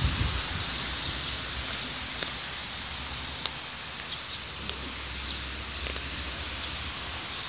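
Steady rain hiss on a wet street, with scattered drips and taps. A passing vehicle's wet-tyre hiss fades out within the first second.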